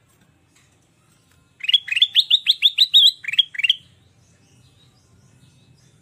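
Ruby-throated bulbul (kutilang emas) singing: a quick run of about a dozen sharp rising notes over two seconds, starting about one and a half seconds in, the last two after a short break.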